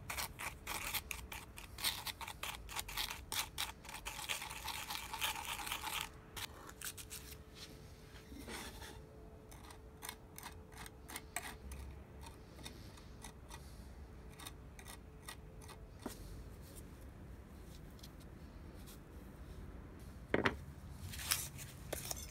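A small tool scraping and stirring a paste of wood dust and glue on cardboard, then pressing it into a crack in a wooden saw handle. The scratchy strokes are quick and dense for the first six seconds, then sparser, and there are two sharp knocks near the end.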